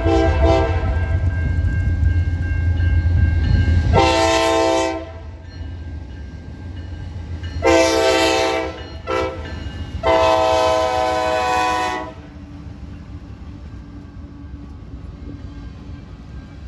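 Norfolk Southern diesel locomotive's multi-chime air horn blowing a series of blasts: a short one, one of about a second, another with a quick toot after it, then a longer blast of about two seconds. It sounds for track workers in a work zone. Under it the locomotive rumbles past, and near the end only the train's wheels rolling over the rails are left.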